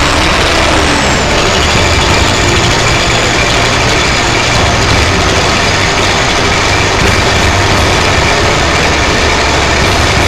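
Combine harvester's turbocharged diesel engine running steadily, with the turbocharger's high whistle above the engine noise. The whistle falls in pitch over the first second or so, then holds steady.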